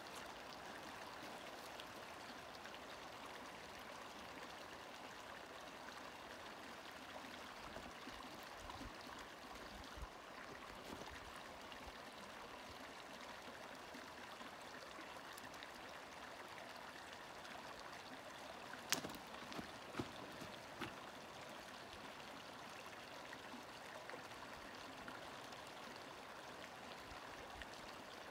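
Small shallow creek running steadily over rocks. A few sharp clicks or knocks come together about two-thirds of the way through.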